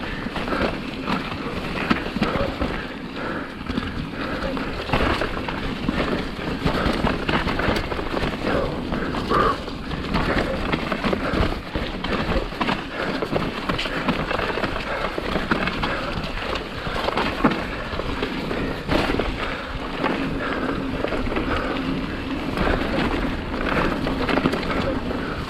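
Mountain bike descending a rough trail: tyres running over dirt and stones, with frequent rattles and knocks from the bike over the bumps.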